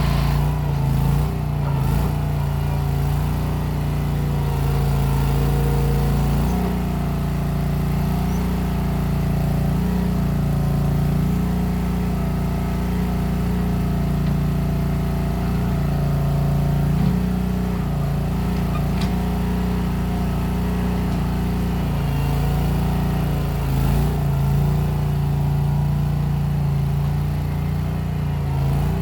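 Case 1816 skid steer's engine running steadily while working, its pitch stepping up and down several times as the load changes.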